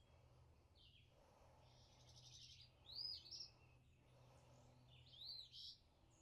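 Birds singing faintly: two short phrases of quick rising-and-falling high notes, about three and five seconds in, over a faint steady low hum.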